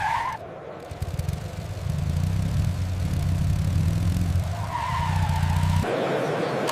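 RC scale vehicle running with a low, engine-like hum that cuts off suddenly near the end, followed by a hissier, higher-pitched noise.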